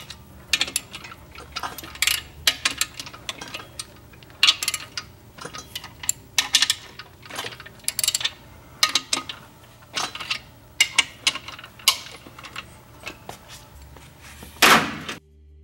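Irregular metal clicks and clinks of a ratchet wrench and socket working the main-cap bolts of a 1.3L Suzuki Samurai engine block as they are loosened, with one louder clank near the end before the sound cuts off suddenly.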